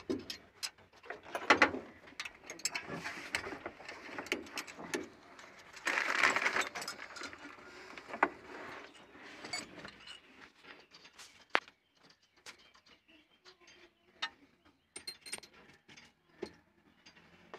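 Metal hand tools clicking and clinking against engine parts while the timing gear and belt area of a stopped Tata Magic engine is worked on by hand, with scattered sharp taps and a stretch of scraping about six seconds in.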